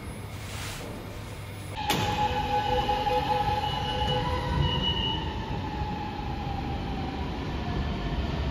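Train running: a steady rumble that steps up louder about two seconds in, then several whining tones that slowly fall in pitch.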